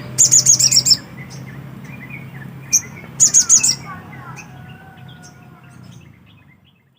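A sogok ontong songbird singing, two quick bursts of rapid, high, piercing chirps a few seconds apart with a single sharp note before the second, over a steady low hum; the sound fades out near the end.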